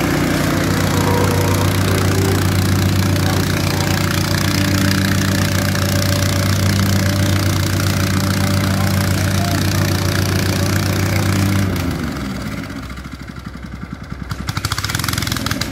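Gasoline-powered vibratory plate compactor running flat out, its small single-cylinder engine and vibrating plate giving a loud, steady drone. About twelve seconds in the engine is throttled back: the pitch slides down and it settles into a slower, uneven idle.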